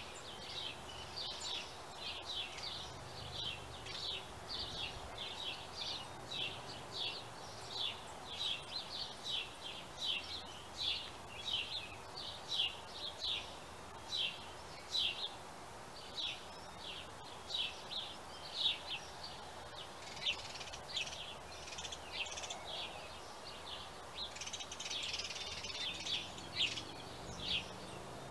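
Dawn chorus of songbirds: a steady run of short, high chirps and song phrases, about two a second, over faint steady background noise.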